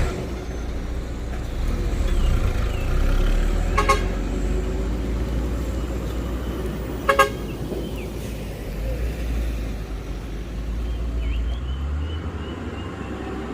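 Truck engine running with a steady low rumble, while a vehicle horn gives a short toot about four seconds in and a quick double toot about seven seconds in.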